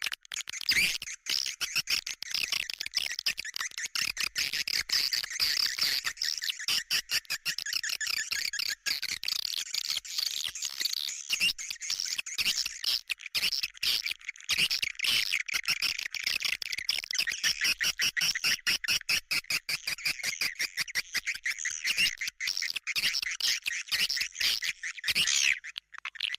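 Recorded swiftlet calls used as a lure: a dense, continuous twittering chatter of many rapid high chirps and clicks, the kind of call sound played in swiftlet houses to draw the birds in.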